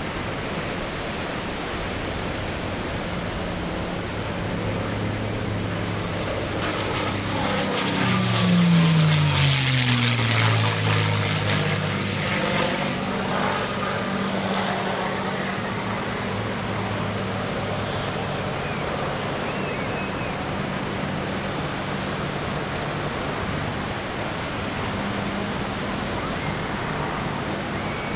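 P-51D Mustang's Packard Merlin V-12 engine and propeller droning as the fighter flies past, growing louder and then dropping in pitch as it goes by about eight to eleven seconds in, before settling back to a steadier, more distant drone. A steady rushing background noise runs underneath.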